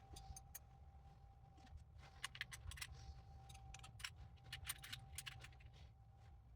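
Faint metallic clicks and clinks of small metal engine parts being handled, a quick scatter of them bunched in the middle, over a steady low background hum.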